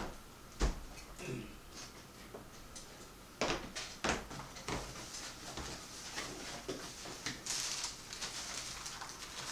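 A few sharp knocks, then crumpled packing paper rustling and crinkling as it is pulled out of a cardboard shipping box.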